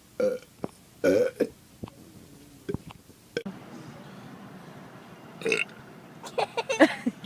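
A series of short, loud burps, the strongest two in the first second and a half; after a cut, more burps come in a quick cluster near the end.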